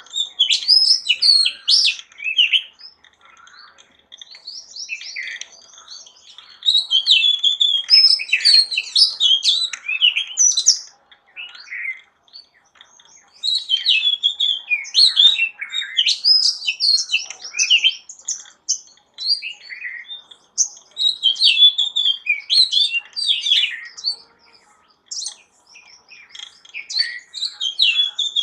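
Birds chirping and singing: quick, high-pitched chirps and trills in busy phrases a few seconds long, separated by short pauses.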